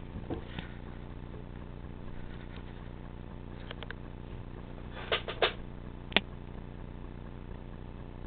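Quiet room tone: a steady low hum with hiss. It is broken by a few short clicks: faint ones a little before four seconds in, three louder ones around five seconds in, and one sharp click a little after six seconds in.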